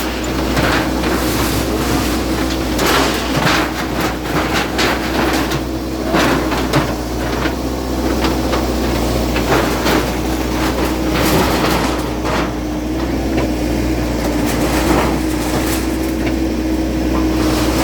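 Diesel engine of a bulldozer running steadily, with a deep rumble and a held engine note. Repeated clanks and crashes sound over it as shanties are knocked down.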